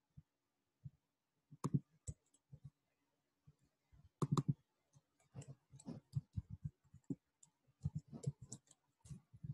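Computer keyboard keys being typed, with a few scattered clicks at first and a denser run of irregular key taps in the second half.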